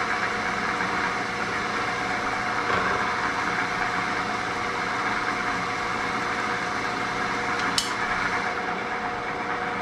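Drill press running steadily with a wiggler spinning in its chuck: an even motor hum with a few held tones. A single sharp tick about eight seconds in.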